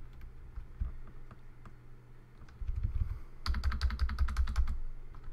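Typing on a computer keyboard while editing a command line. A few scattered keystrokes come first, then a fast run of about a dozen key clicks starting about three and a half seconds in, over a faint steady low hum.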